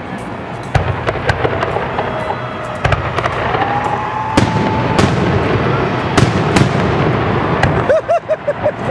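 Aerial fireworks bursting in a rapid, irregular series of sharp bangs and crackles, with a few whistling tones over the din, including a quick wavering run of them near the end.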